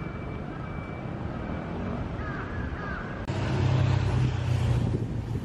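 City street ambience with a crow cawing a few times over the general hum. About three seconds in it switches abruptly to louder road traffic with a low, steady engine rumble.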